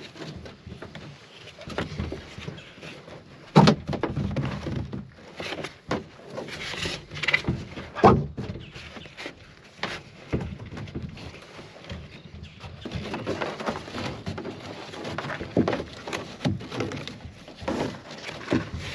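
Handling noise from tightening a Pelican kayak's seat straps: nylon webbing rustles as it is pulled through plastic buckles, and the seat back is pushed down into the plastic cockpit, with scattered clicks and knocks. The loudest knocks fall about three and a half seconds in and about eight seconds in.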